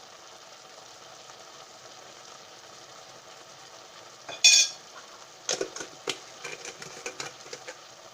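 Beef and onions frying quietly in a pan. About four and a half seconds in comes a short loud scrape, then a run of knocks and scrapes of a utensil against the pan as the meat is stirred.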